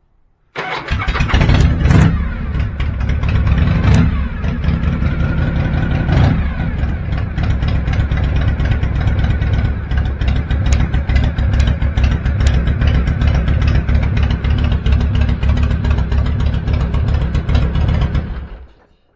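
93-cubic-inch Harley-Davidson Shovelhead V-twin catching about half a second in and starting, revving briefly a few times in the first six seconds. It then idles steadily and is switched off near the end.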